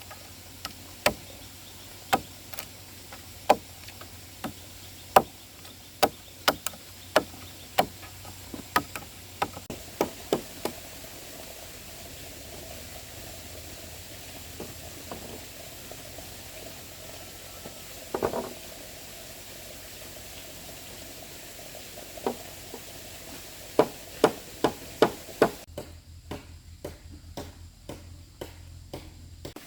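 Repeated sharp knocks of a hand tool striking wood or bamboo, roughly one a second at first, then a pause, then a few more strikes and a quick run of them near the end.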